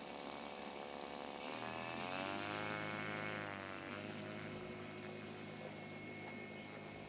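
Engine of a radio-controlled model Cessna running on the ground, revving up about a second and a half in, holding, then dropping back about four seconds in and running on steadily.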